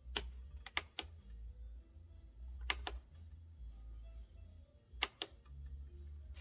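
Faint low hum with a few scattered sharp clicks, coming singly and in pairs.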